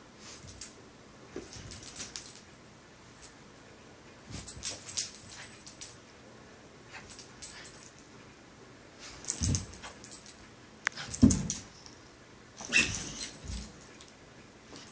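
A West Highland white terrier and a bulldog play-fighting: collar tags jingling in bursts and short dog vocalisations, the loudest about eleven seconds in, with further ones near the end.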